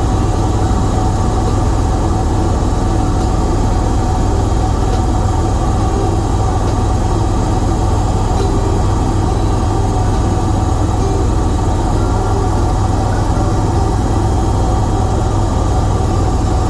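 Bell 407 helicopter in flight, heard from inside the cabin: a steady, loud drone of the turbine engine and rotor, with a steady tone held over it and no change in pitch or level.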